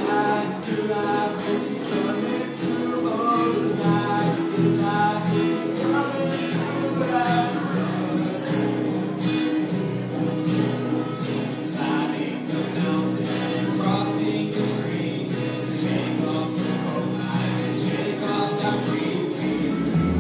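A singer performing a song with guitar accompaniment, the melody carried in held, wavering notes over a steady guitar part.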